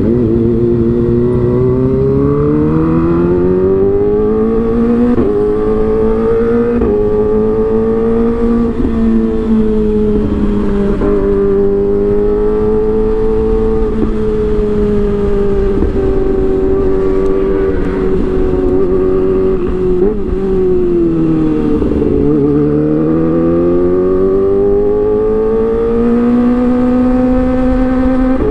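Kawasaki ZX-25R's 250 cc inline-four running loud through an Arrow exhaust. The engine note climbs over the first few seconds and holds fairly steady, then dips about three quarters of the way through and climbs again.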